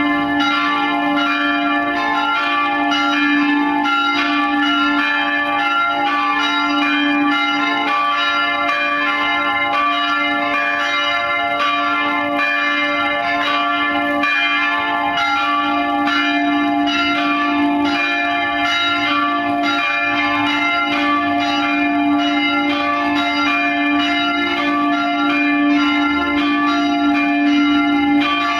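Three swinging church bells, cast by the Van Bergen foundry of Heiligerlee, ringing together in the call to mass: a steady, continuous peal of overlapping strikes over a strong, lingering low tone.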